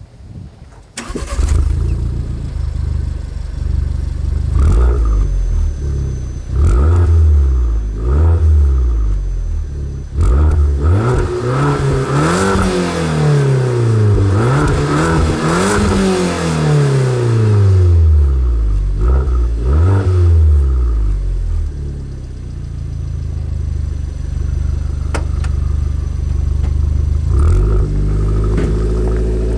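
Alfa Romeo MiTo Quadrifoglio Verde's stock exhaust as its turbocharged 1.4-litre four-cylinder starts about a second in and settles to idle. The engine is then revved repeatedly, with short throttle blips and several longer rev sweeps rising and falling in the middle. It drops back to a steady idle, with one last blip near the end.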